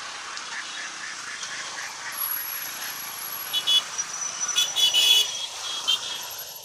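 A procession of motorcycles riding past, engines running, with several short, loud horn beeps in the second half.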